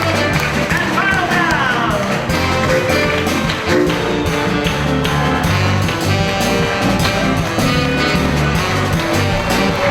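Band music in a rock-and-roll style, with guitar over a steady, evenly stepping bass line; a sliding note rises and falls between about one and two seconds in.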